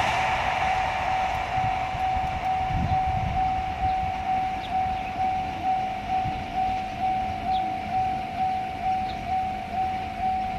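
Japanese level-crossing alarm ringing, a single tone repeating at about two strokes a second, while the noise of a passing train fades away in the first couple of seconds.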